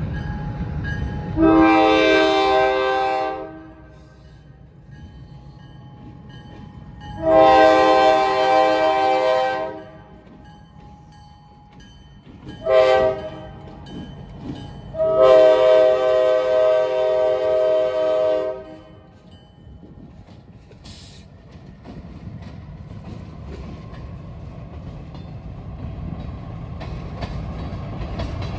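Diesel switcher locomotive's multi-note air horn sounding the grade-crossing signal: two long blasts, a short one, then a final long one. The locomotive and its freight cars then roll through the crossing, a rumble with wheel clicks that grows louder near the end.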